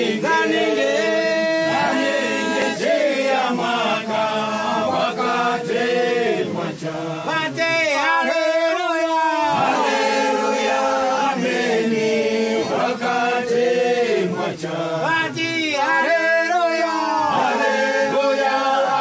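A group of voices singing a hymn in Chitumbuka together, unaccompanied.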